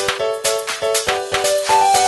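Music: a quick, repeating melody over a steady beat of about four to five hits a second.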